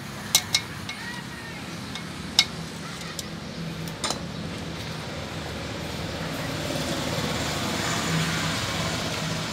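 A few sharp metallic taps, two close together at the start and two more a couple of seconds apart, as a ball bearing is tapped into the aluminium gearbox casing of an Ape auto. In the second half a broad background vehicle noise swells.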